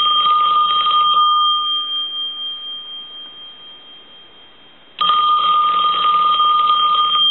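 Western Electric Princess telephone's bell ringing with its bell circuit just repaired: one ring stops about a second in and dies away over the next few seconds, then the next ring starts about five seconds in.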